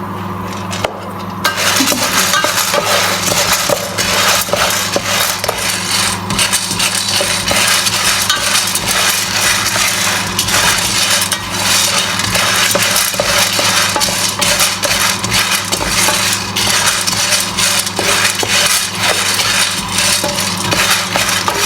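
Green coffee beans being stirred in a pan as they start to roast: a continuous scraping and rattling of beans and utensil against the pan, starting about a second and a half in, over a steady low hum.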